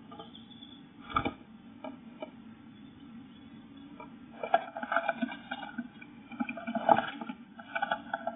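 Eurasian blue tit moving about inside a wooden nest box: its claws and beak scratch and tap on the wood, with a few sharp knocks and busier scraping from about halfway, over a faint steady hum.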